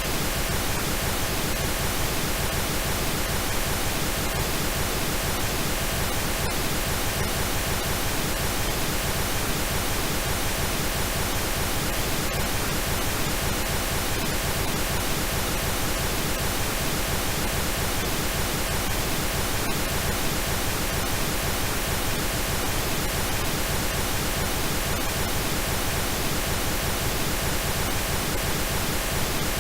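Steady, unchanging pink noise: an even hiss spread across the whole range from low to high, with no tones, rhythm or events in it.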